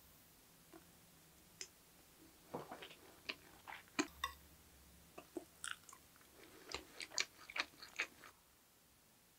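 Stainless steel spoon clinking and scraping against a ceramic bowl while scooping up egg fried rice, mixed with chewing. The clicks come in a loose, uneven scatter and stop a second or so before the end.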